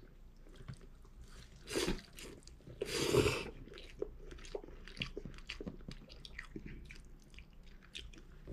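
A person slurping up a mouthful of japchae noodles with one loud slurp about three seconds in, then chewing with small wet clicks.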